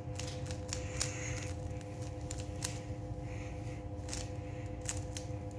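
Rubik's cube being twisted by hand: irregular sharp clicks and rattles of the plastic layers turning, a few quick turns in a row then pauses.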